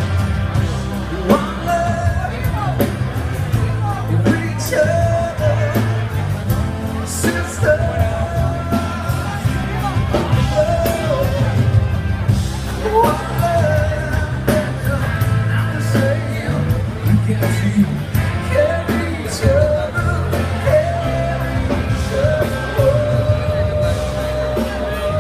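Live amplified band music: a singer over electric guitars, bass and drums, played loud through a PA system.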